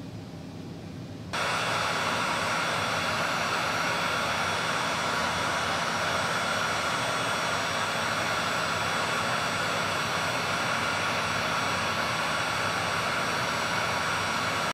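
Electric heat gun switched on about a second in, its fan blowing steadily with a high whine while it heats a solder-seal heat-shrink wire connector.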